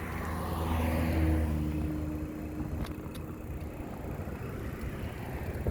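A car driving past, its engine hum and tyre noise swelling about a second in, then fading away.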